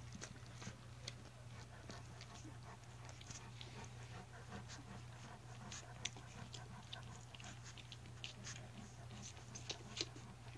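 Faint wet clicks and smacking of a newborn English mastiff puppy mouthing and sucking at a person's fingers, scattered irregularly, with a few sharper clicks, over a steady low hum.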